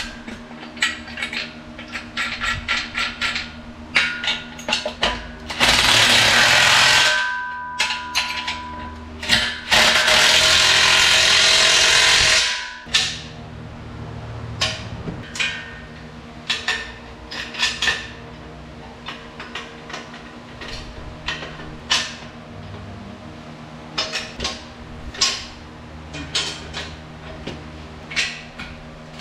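Bolts being tightened on a steel shop crane: runs of rapid clicking from a hand ratchet and metal parts, and two loud bursts of a cordless impact wrench hammering, about a second long a fifth of the way in and about two seconds long a third of the way in.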